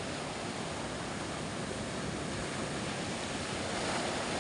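Steady rush of sea waves and surf, mixed with wind noise on the microphone.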